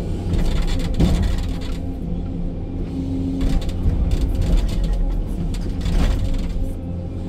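Hydraulic excavator's diesel engine running steadily under digging load, heard from inside the cab, with the bucket scraping and knocking in soil and stones, sharpest about a second in and again near six seconds.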